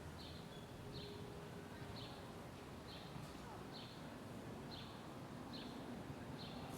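A small bird chirping over and over, one short, slightly falling chirp about every second, above a steady low hum of city noise.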